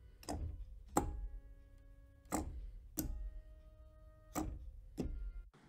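Farfisa Compact organ keys knocking as they are pressed and released, six sharp clicks in uneven pairs, with the organ's note faintly sounding while a key is held. A low room rumble runs underneath, not removed by a noise gate.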